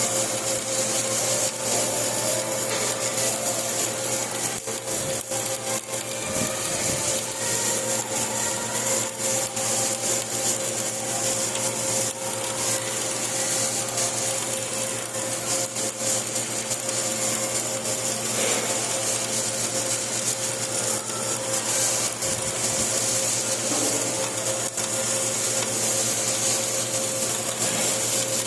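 Flux-cored arc welding: the arc crackles steadily for the whole stretch, over a steady electrical hum.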